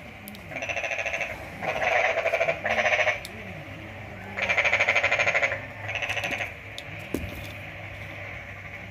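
An animal calling in five short, rapidly pulsing bursts, each under a second long. A single sharp knock comes about seven seconds in.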